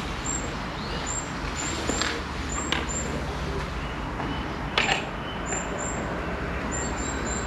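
Steady outdoor background noise with a few light clicks and knocks as antenna hardware is handled on a tripod, the loudest knock about five seconds in.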